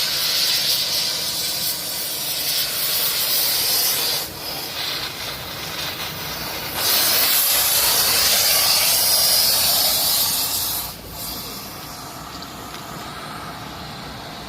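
Loud, steady hissing from rail thermit welding, such as a gas jet or the reaction burning at the weld. It gets louder about halfway through, then falls sharply to a quieter hiss a few seconds before the end.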